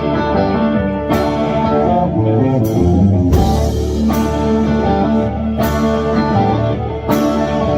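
Rock music with electric guitar and drum kit, a beat hitting about every second and a half.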